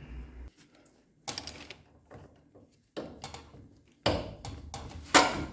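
Metal knocks and scrapes of tools and parts as an engine mount bolt is worked out through a scooter's worn engine bushings: a few separate sharp clunks, the loudest near the end.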